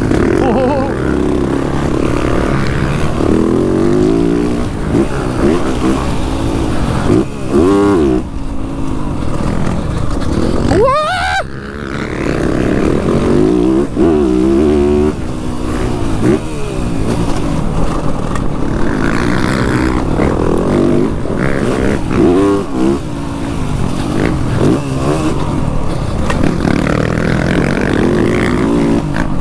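Motocross bike engine revving hard and falling back again and again as the bike accelerates and shifts around the track. About eleven seconds in the revs shoot up sharply, then the sound drops off briefly.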